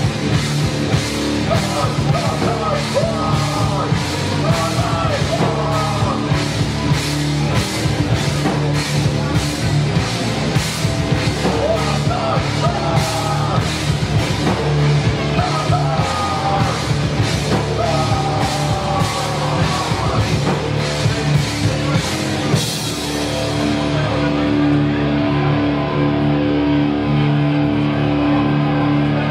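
A rock band playing live: a drum kit with cymbals keeps a steady beat under electric guitars and a singer. About two-thirds of the way through, the drums and singing stop and a held guitar chord rings on.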